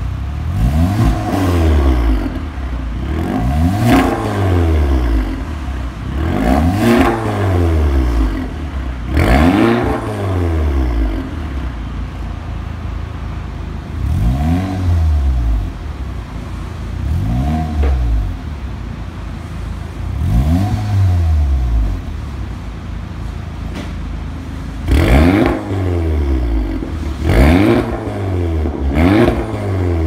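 Audi TT 45 TFSI's turbocharged 2.0-litre four-cylinder free-revved repeatedly through an Fi Exhaust valved catback with catless downpipe: about ten blips, each rising and falling in pitch. The blips are softer in the middle with the exhaust valves closed and sharper and louder near the end with the valves open.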